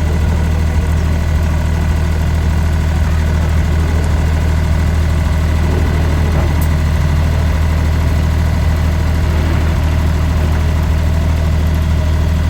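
Steady, unchanging low engine drone, like an engine idling close by.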